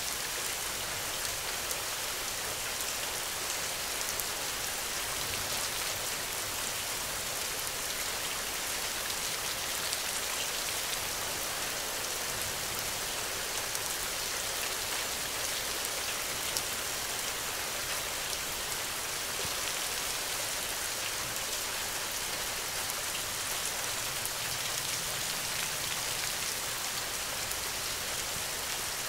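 Steady rain falling on a hut's window: a continuous even hiss with many small drop ticks scattered through it.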